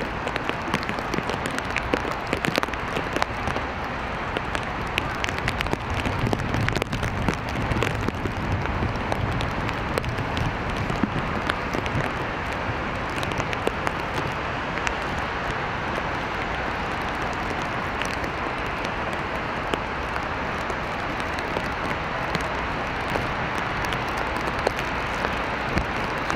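Steady rain falling on wet pavement, with many sharp drops ticking close by. A low rumble swells and fades a few seconds in.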